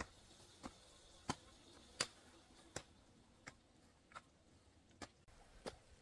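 Short sharp knocks or clicks repeating at an even pace, a little more than one a second, over a quiet background.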